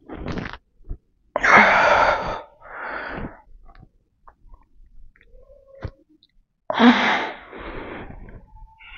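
A man's heavy, forceful breathing while pressing a barbell overhead: several short, strong exhales timed to the reps. The loudest come about a second and a half in and again near the end, each followed by a weaker breath.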